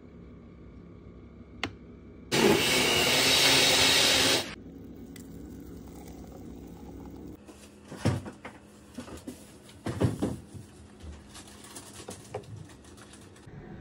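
Blender running for about two seconds as it purées yogurt, strawberries and dates into a smoothie, then cutting off abruptly. It is followed by several knocks and clunks about halfway through and again a little later, as the jar and glass are handled.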